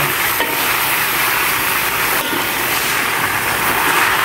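Cendawan tahun mushrooms and spice paste sizzling in a hot wok as they are stirred with a metal spatula: a steady frying hiss.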